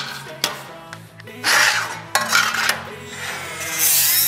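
Milwaukee 2-inch die grinder cleaning dross and slag off the back of a plasma-cut steel piece: two short bursts of grinding, then steady grinding from near the end. Background music with a repeating beat plays throughout.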